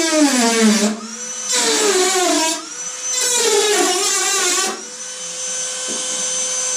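Dremel rotary tool cutting into the rusted metal at the bottom of a car door in three bursts, its whine dropping in pitch under load and climbing back between cuts. For the last couple of seconds it spins freely at a steady high whine.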